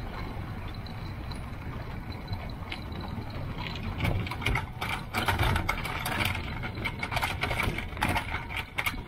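An electric ultralight trike rolling over bumpy grass: a low rumble with rattling and knocking from the frame and wing. The knocks come thicker and louder from about four seconds in.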